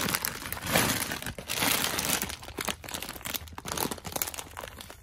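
Plastic bags of individually wrapped chocolate candies crinkling as a hand rummages through them and presses on them. It is densest for the first two seconds or so, then thins to scattered crackles.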